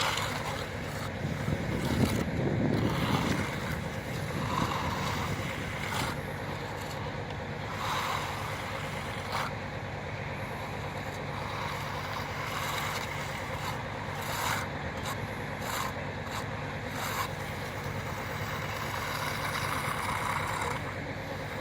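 An engine running steadily, with scattered short knocks and a louder stretch a couple of seconds in.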